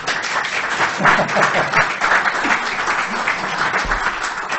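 Audience applauding, many hands clapping densely at the close of a talk.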